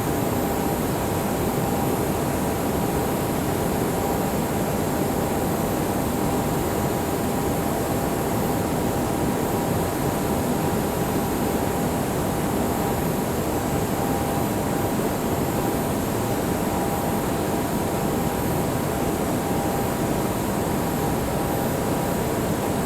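CNC machine running steadily while machining handlebar risers: a constant mechanical noise with steady high whining tones from the spindle.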